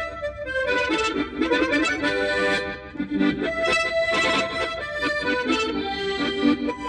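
Harmonica solo: a lively tune played with chords under it and quick changes of notes, without a break.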